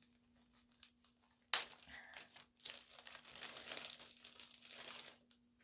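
Soft crinkling and rustling of packaging as costume jewelry is taken out and handled. It starts about a second and a half in and goes on, irregularly, for nearly four seconds.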